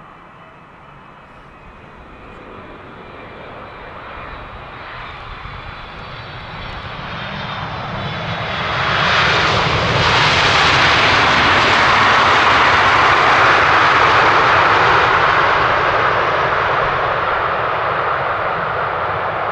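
Large jet airliner's engines on landing approach, growing steadily louder as it nears, loudest about halfway through as it passes close by, then slowly fading. A faint high engine whine is heard early on before the broad jet noise takes over.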